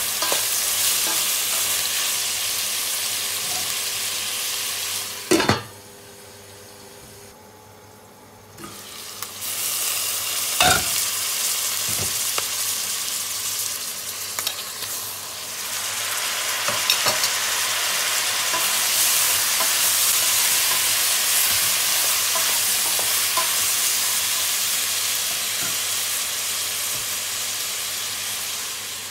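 Beef pieces and sliced onions frying in oil in a stainless steel pot: a steady sizzle with a wooden spatula stirring, and a few sharp knocks. The sizzle drops away for about three seconds a few seconds in, and softens briefly midway as chopped tomatoes go in.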